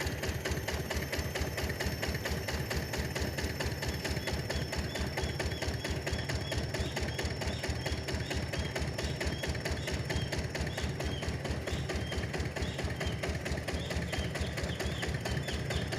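Mobile rice huller driven by a Yanmar diesel engine, running steadily under work with a rapid, even knocking beat.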